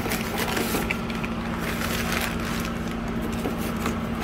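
Crumpled newspaper packing rustling and crinkling in a cardboard box as a hand digs through it, with irregular scrapes and crackles over a steady low hum.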